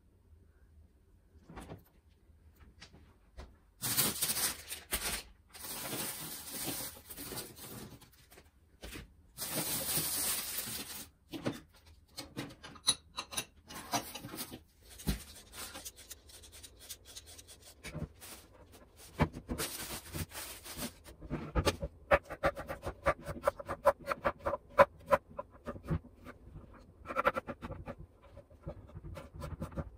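Home kitchen prep sounds: bursts of rustling and handling in the first half, then a knife chopping quickly on a wooden cutting board, sped up into a rapid run of taps.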